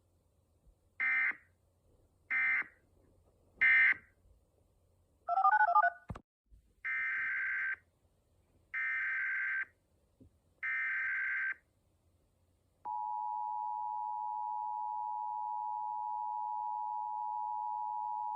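Emergency Alert System tones. Three short screeching SAME end-of-message data bursts close the test, followed by a brief burst of other tones and a click. Then come three longer SAME header data bursts, and about 13 seconds in the steady two-tone EAS attention signal starts and holds.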